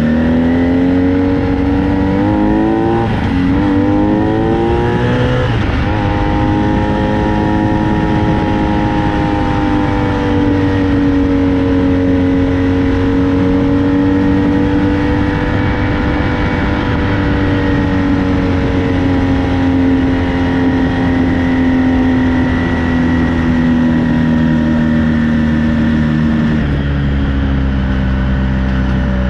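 Honda VF1000 V4 motorcycle engine powering a home-built dune buggy: it revs up and down a few times in the first six seconds, then runs at a steady high speed with a slow rise and fall in pitch, dropping back near the end.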